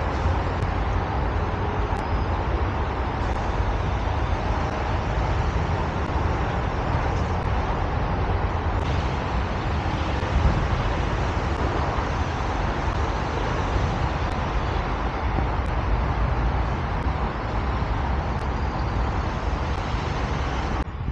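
Steady road traffic noise from a busy highway: a continuous rushing hiss of passing vehicles with a deep rumble underneath.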